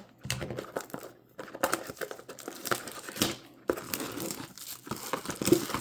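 Plastic wrapping of trading card packaging crinkling and tearing as it is ripped open: a run of irregular crackles with a couple of short pauses.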